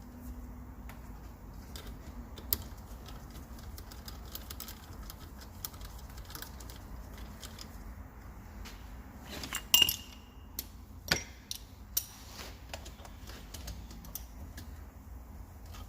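Scattered light metallic clicks and clinks of hand tools and bolts being worked on a cylinder head. The loudest is a sharp ringing metal clink about ten seconds in, followed by a few more clicks about a second later.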